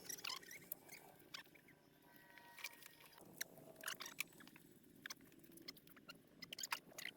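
Faint, scattered light clicks and taps of engine parts and hand tools being handled during assembly, a little over a dozen in all, the sharpest near the end.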